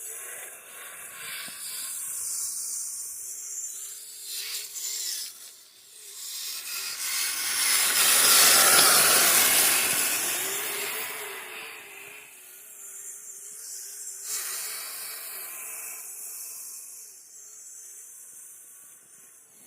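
Kyosho Blizzard RC tracked snow vehicle running: a thin, wavering electric motor whine under the hiss of its tracks in the snow. Near the middle, the rushing hiss swells to a loud peak, then fades again.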